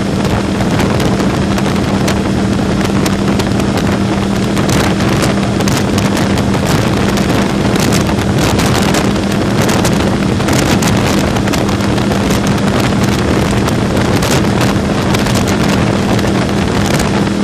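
2013 Yamaha R1's crossplane inline-four engine, its exhaust fitted with an A & R Motorsports baffle kit, running at a steady cruise of about 70 mph with a constant drone. Heavy wind rush on the microphone runs over it.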